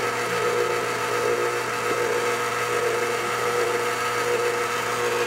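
KitchenAid Heavy Duty stand mixer running steadily, its wire whip beating royal icing of egg whites and confectioners' sugar in a steel bowl: an even motor hum with a couple of steady tones.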